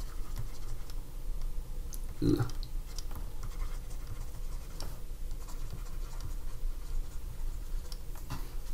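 Stylus scratching and tapping lightly on a drawing tablet as words are handwritten, with a steady low hum underneath.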